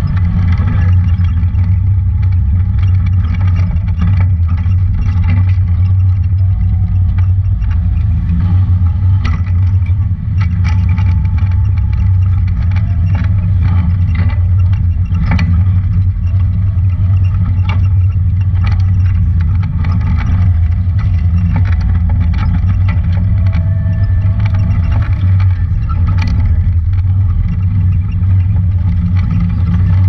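Honda Talon 1000 side-by-side's engine running steadily at a low drone while it drives a rough trail. Frequent short knocks and rattles sound throughout.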